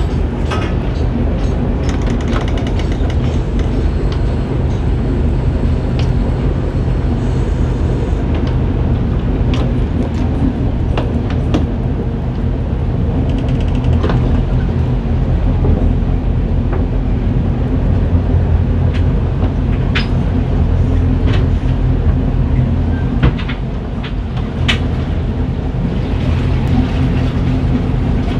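Motor cruiser's engine running steadily at low speed, a deep even hum, with occasional light clicks and knocks.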